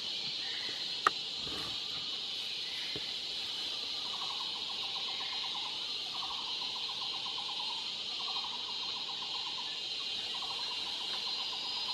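Forest insect chorus: a steady high-pitched drone, joined from about four seconds in by a lower pulsed trill that repeats in runs of a second or two. One sharp click about a second in.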